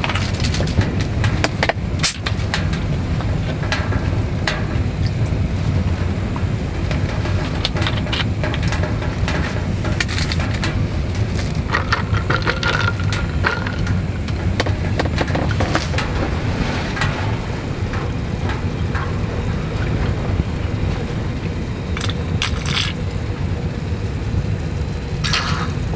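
Firewood crackling in a wood-burning stove over a steady low rumble, with sharp pops scattered throughout.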